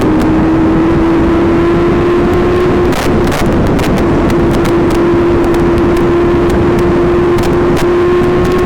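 Supercharged Kawasaki Ninja H2 inline-four with a Vandemon exhaust, running under steady throttle at speed, its pitch creeping slowly upward with a brief break about three seconds in. Heavy wind buffeting on the microphone runs underneath.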